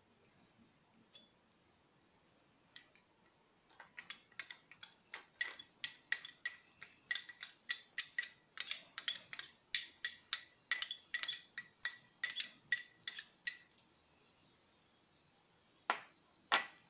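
A small glass prep bowl clinking in quick, ringing taps, about four a second for some ten seconds, as chopped garlic is knocked out of it into the pan. Two louder clinks follow near the end.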